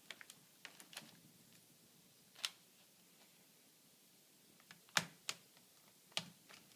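Irregular sharp plastic clicks and taps, about eight in all, the loudest about five seconds in, as smooth plastic lock rings are pressed onto a membrane plate of an ultrafiltration stack.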